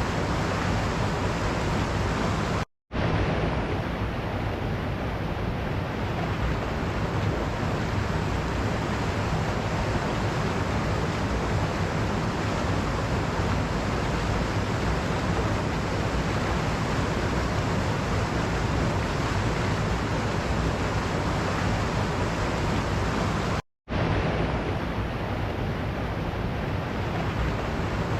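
Waterfall water rushing in a steady, dense roar. It cuts out to silence twice for a split second, about three seconds in and again about four seconds before the end, like joins in a looped recording.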